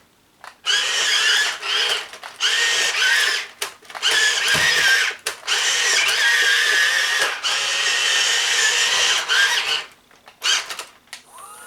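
Electric drive motors and gearboxes of a 1/12 scale radio-controlled track loader whining in repeated bursts of one to two seconds, starting and stopping as it is driven, the pitch wavering slightly with the load.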